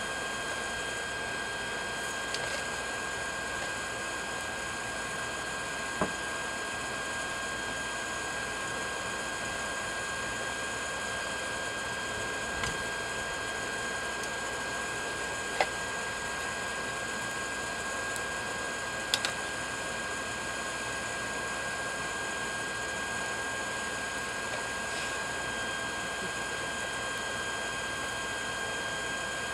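Electric air blower feeding a backyard forge, running steadily with a constant whirring hiss and a fixed whine. A few sharp metallic clicks stand out, the loudest about six, fifteen and nineteen seconds in, as the tongs knock in the fire.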